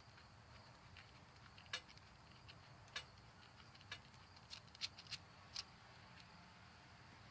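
Near silence with faint, sharp clicks and light taps, about eight of them, scattered irregularly and bunched together a little past the middle.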